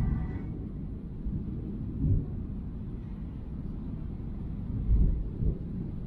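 Thunder rumbling low, swelling about two seconds in and again around five seconds.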